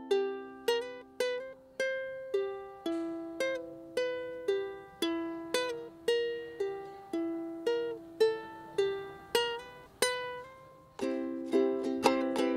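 Solo ukulele picking a melody, about two plucked notes a second, each ringing and fading, then switching to fuller strummed chords near the end.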